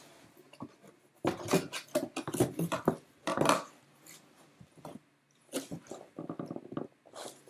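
Cardboard box being handled and folded: flaps bending and rubbing against each other in bursts of rustling and creaking about one and three seconds in, then lighter taps and scrapes near the end.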